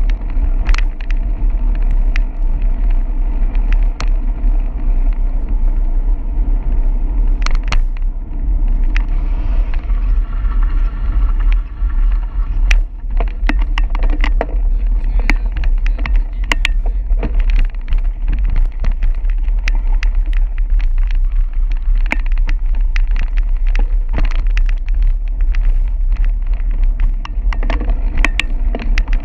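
Bicycle riding on a wet paved path: wind rumbling steadily on the handlebar camera's microphone over the hiss of the tyres on wet pavement, with frequent short clicks and knocks as the bike and camera mount rattle over the surface.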